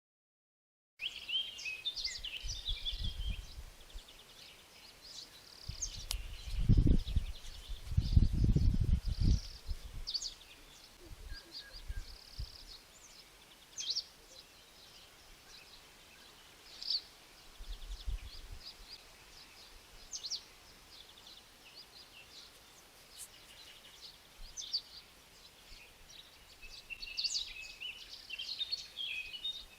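Small birds chirping in short, high calls, on and off throughout. A few low rumbling bursts come in, the loudest about six to nine seconds in.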